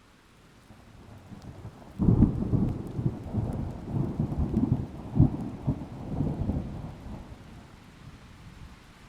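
Thunder: a low rumble breaks out suddenly about two seconds in and rolls on with several loud peaks for about five seconds before dying away, over a faint steady hiss of rain.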